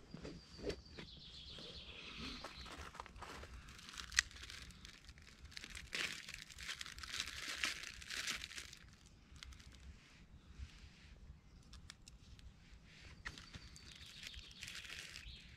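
A wrapper crinkling and tearing as a piece of food is unwrapped by hand, in bursts of crackling over several seconds, with a sharp tick about four seconds in.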